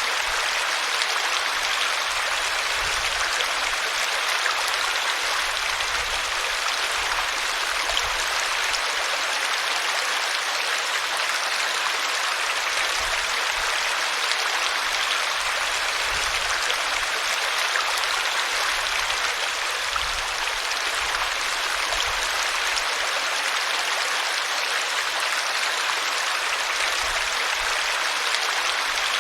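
River water flowing steadily over rocks, a continuous bright rushing and splashing with occasional low rumbles.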